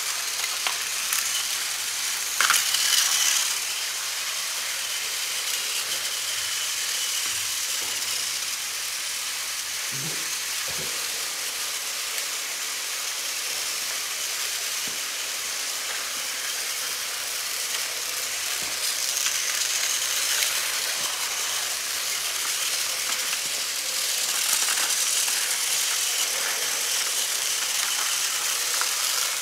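Several battery-powered toy train engines running on plastic track: a steady whirring hiss of their small motors and gears, with a brief louder rattle about three seconds in.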